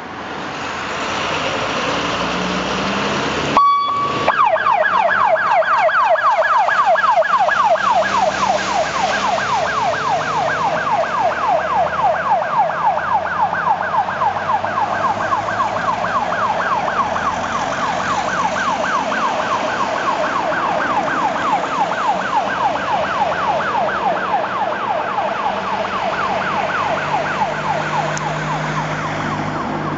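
Fire engine on an emergency call: vehicle noise, then a short steady tone about three and a half seconds in. After that its siren runs a fast, repeating rising-and-falling wail that slowly fades as the truck drives away.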